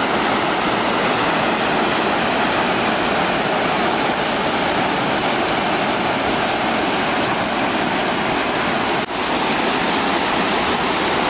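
Small mountain waterfall cascading over boulders into a stream: a steady, loud rush of water, briefly dipping about nine seconds in.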